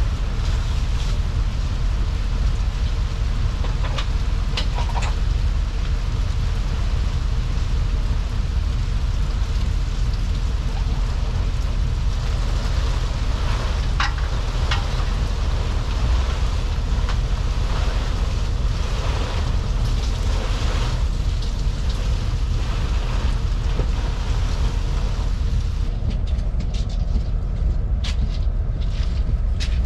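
Motorboat under way: its engine running steadily under a deep rumble of wind and water noise, with a few brief knocks or splashes.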